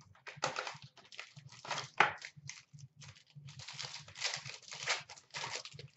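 Hockey card box packaging being opened: irregular crinkling and tearing of the wrapper and cardboard, with a sharp click about two seconds in.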